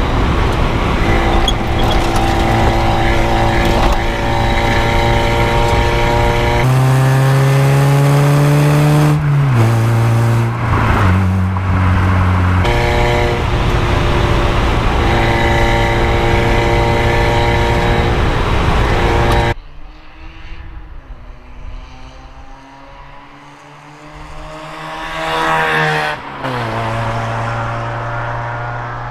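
Car engine running hard, its pitch holding steady and then climbing and dropping in steps. About two-thirds through, it cuts abruptly to a much quieter car sound whose pitch rises as it grows louder. The loud engine comes back near the end.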